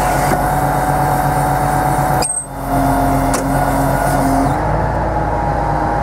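Tractor engine running steadily under hydraulic load, with a steady hydraulic whine as the Sipor GS 550 forestry head rotates and opens its grapple arms. The sound drops out briefly about two and a half seconds in.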